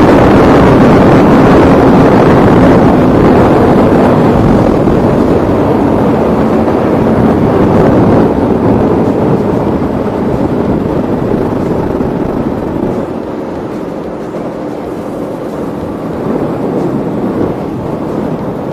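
Wind rushing over the rider's microphone on a moving Aprilia Tuono V4 1100 Factory motorcycle, with its V4 engine running underneath. It is loud and steady, then eases off somewhat about twelve seconds in.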